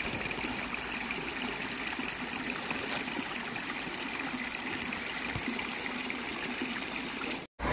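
Steady rush of running water, cutting off suddenly near the end.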